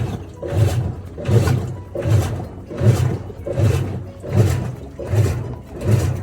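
Washing machine agitating in its wash cycle: the motor drives the drum back and forth in a steady rhythm, a low hum and a swish repeating about every three-quarters of a second. It runs normally with its speed sensor fixed, the fault light no longer flashing.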